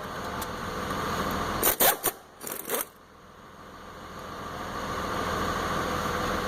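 A few sharp metal clicks and knocks from handling a brake caliper and its parts, about two seconds in, over a steady background hum.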